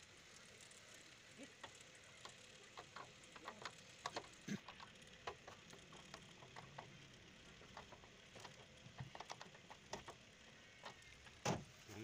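Faint scattered clicks and taps from hands handling the metal mounting plate, shaft and nuts of a washing machine's rotor assembly, over a quiet hiss, with one louder knock near the end.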